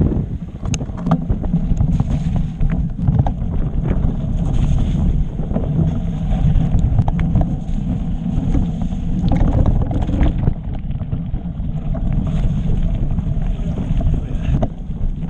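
Wind buffeting the microphone of a camera riding along on a mountain bike, with the tyres rolling over the trail and many short knocks and rattles from the bike over the bumps.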